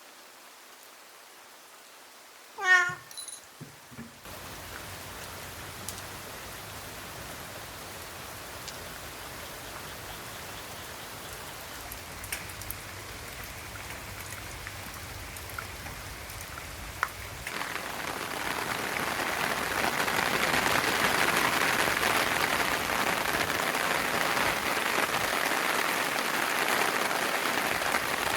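A cat gives one short meow about three seconds in. Then a steady rain sound sets in and becomes heavier about halfway through.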